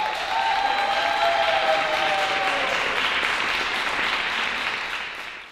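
Audience applauding at the end of a dance performance, steady, fading out near the end.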